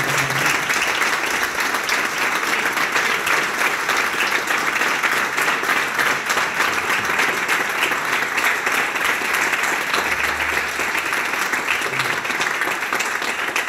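Audience applauding: many people clapping steadily and continuously.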